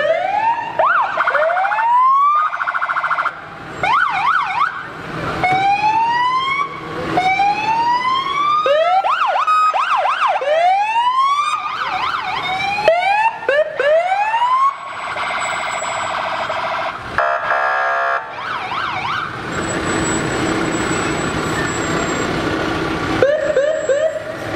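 Fire engine sirens sounding in short rising whoops, several overlapping, through the first half. A brief horn blast follows, then the steady running of the passing fire trucks.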